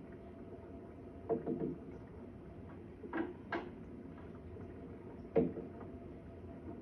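Irregular knocks and thuds coming through the building from a neighbouring flat: a quick group of two or three, then two more a moment apart, then a single one near the end.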